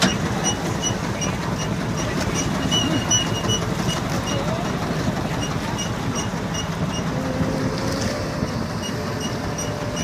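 Fishing boat's motor running steadily, with a faint high chirp repeating about three times a second.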